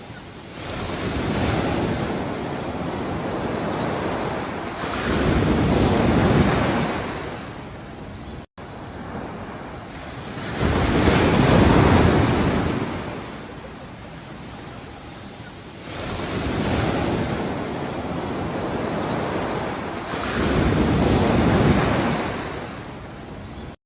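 Ocean waves breaking and washing up the shore, swelling and ebbing in surges about every five seconds. The sound cuts out for an instant about a third of the way in.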